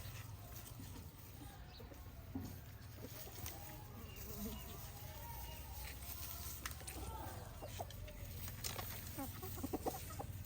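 Chickens clucking, over a steady low rumble, with a few sharp clicks near the end.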